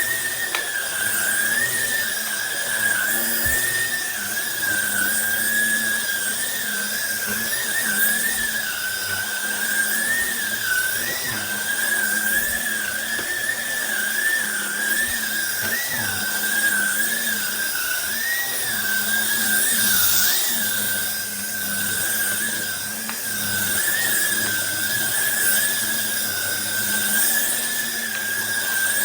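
Trucozie cordless stick vacuum running with a steady high motor whine that wavers slightly in pitch.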